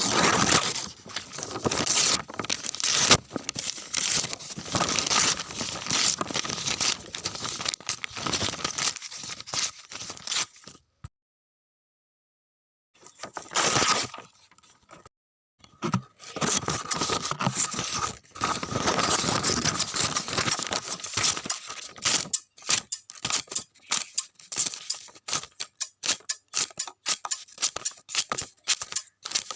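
Paper being torn: long, dense crackling rips, broken by a silence of about two seconds a third of the way through and a short rip just after it. Toward the end the tearing comes in shorter, separate tugs.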